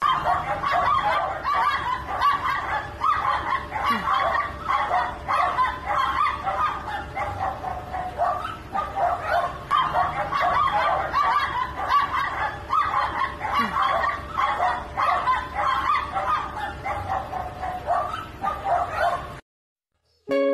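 A small dog barking and whining in rapid, unbroken yaps, cutting off suddenly about a second before the end.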